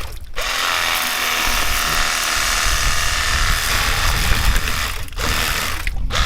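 Cordless handheld battery pressure washer running and spraying, its pump motor giving a steady rattling buzz that stops briefly about five seconds in and again near the end as the trigger is let go.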